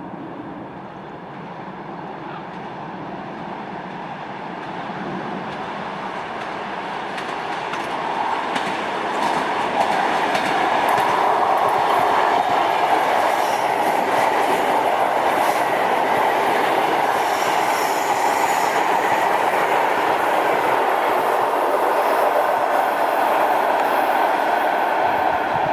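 A train approaching, growing louder over about ten seconds, then running close by with the rapid clatter of wheels over the rail joints.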